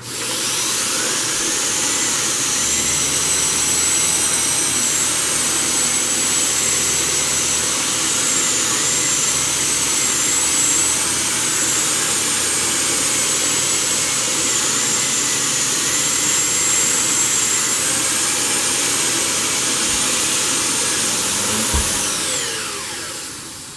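Dyson Cinetic Big Ball canister vacuum running at full suction with a high, slightly wavering motor whine, its turbo floor head with nylon and carbon-fibre bristles pushed over carpet. It starts abruptly and winds down with a falling whine near the end as it is switched off.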